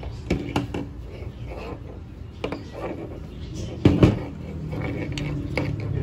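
Scattered metallic clicks and knocks as a removed hood latch assembly, with its cable and switch, is handled and worked apart by hand. The loudest is a short clatter about four seconds in.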